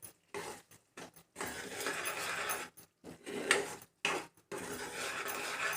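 Spoon stirring and scraping thick chana masala gravy in a cooking pan, in short irregular strokes with brief pauses.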